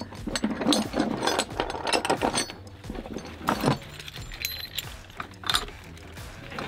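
Ratchet strap mechanism being worked: a run of irregular metallic clicks and clanks.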